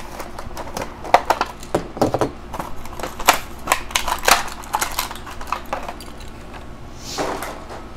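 Clear plastic blister packaging and its cardboard backing crackling, snapping and tearing as a die-cast toy monster truck is pulled out of its package: a run of irregular sharp clicks and crinkles, with a short rustle near the end.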